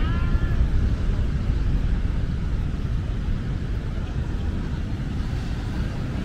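Steady low wind rumble on the microphone of a camera moving along on a bike, over a faint background of surf and street traffic, with a brief high chirp right at the start.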